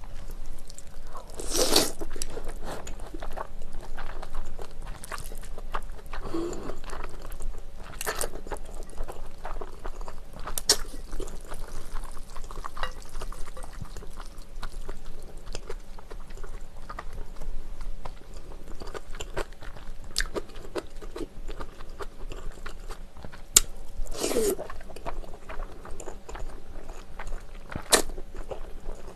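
Close-miked eating of spicy Korean bibim noodles: thin noodles slurped up, with a few loud slurps, and steady wet chewing and mouth clicks in between.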